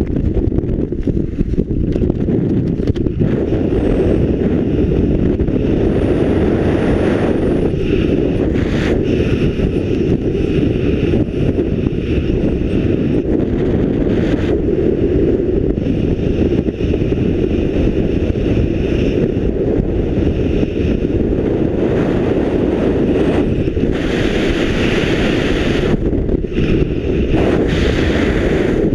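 Steady rumbling wind buffeting a helmet camera's microphone during descent under an open parachute canopy, with a brief patch of brighter hiss near the end.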